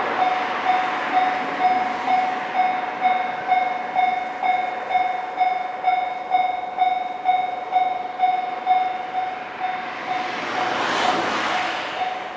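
Japanese railroad crossing warning bell ringing steadily, one pitched ding repeating about twice a second. A passing train's rush swells and fades near the end.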